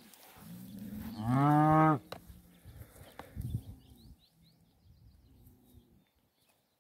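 A young bull bellows once, loudly, a drawn-out call of about a second and a half that rises and then holds, while two bulls fight head to head. Fainter low moans and a sharp knock follow.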